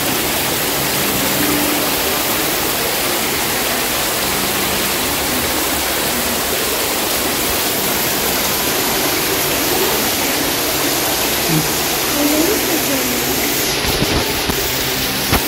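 Water from a small artificial waterfall splashing steadily over rocks into a koi pond.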